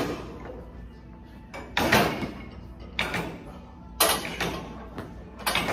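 Short, sharp, forceful breaths, one about every second or so, from a man bracing under a barbell in an isometric squat hold.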